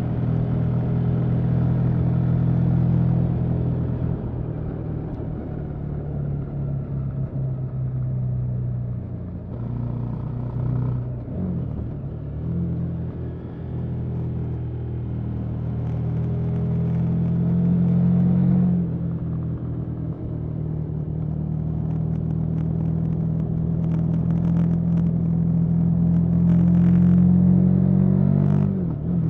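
KTM 1290 Super Adventure S's V-twin engine running through its stock exhaust, holding fairly steady revs that rise slowly at times, with a few brief dips and recoveries in pitch.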